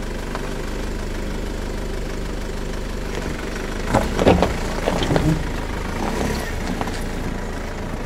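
SsangYong Rexton Sports Khan's 2.2-litre diesel engine running at low revs as the pickup crawls over a rough crushed-stone off-road track. A cluster of knocks and clunks comes about halfway through.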